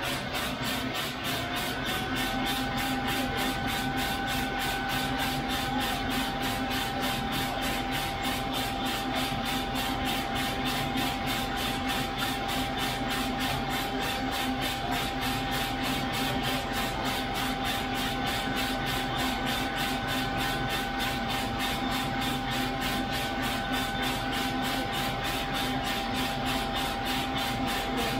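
Loring 15k Falcon coffee roaster running mid-roast, with beans tumbling in the rotating drum in an even rhythm of about three beats a second over a steady mechanical noise. A steady whine rises in pitch over the first couple of seconds, then holds.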